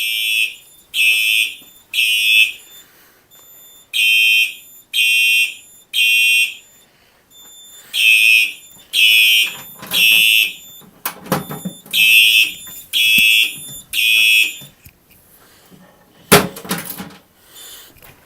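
Simplex 4903-9236 fire alarm horn sounding in the temporal-three evacuation pattern: three loud, buzzy blasts, a short pause, repeated four times, then it stops. A loud sharp knock follows near the end.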